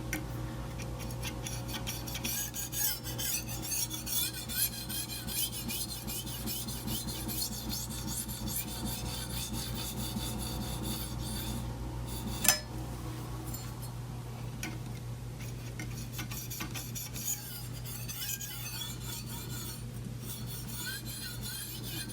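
Steel chef's knife blade stroked over and over across a fine finishing stone with light pressure, a steady run of soft rasping strokes that raise a very fine burr on the edge. One sharp click about halfway through.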